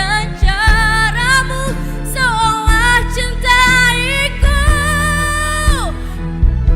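A singer's improvised run over backing music: wavering melismatic phrases with vibrato, ending in a long held note that slides sharply down and breaks off near the end.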